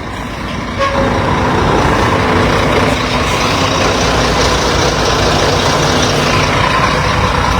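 Heavy low-bed truck engine running close by, growing louder about a second in and then holding steady.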